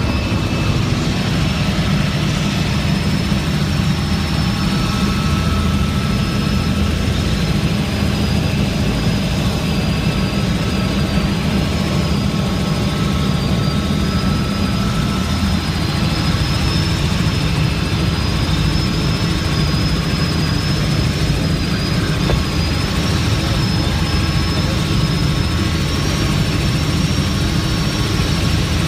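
Helicopter engine and rotor running steadily, heard from on board in flight: a constant heavy low rumble with a thin, high whine drifting slightly over it.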